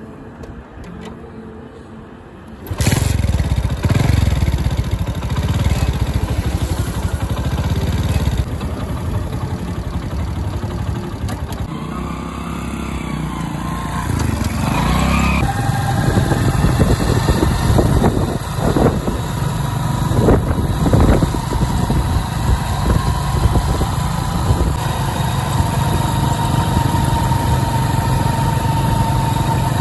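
Hero Honda CD100's 97cc single-cylinder four-stroke engine kick-started, catching suddenly about three seconds in, then running as the motorcycle rides away, its revs rising and falling as it pulls away.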